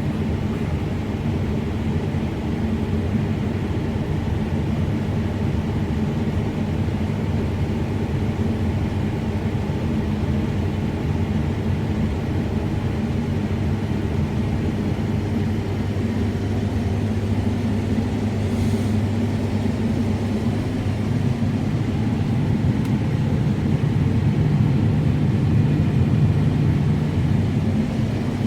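Combine harvester running steadily while cutting spring barley, its engine and threshing gear giving a continuous low drone that grows slightly louder a few seconds before the end.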